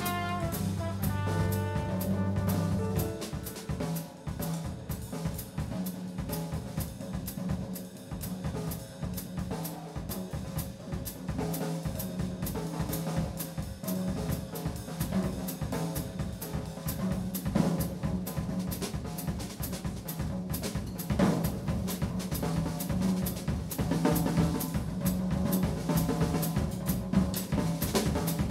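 Drum kit solo in a jazz quartet: busy, dense playing on snare, bass drum and cymbals. The held bass and piano notes of the band stop about three seconds in.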